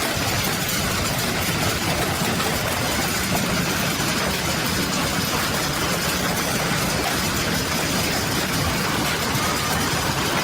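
Heavy hailstorm: a dense, steady clatter of countless hailstones pelting down.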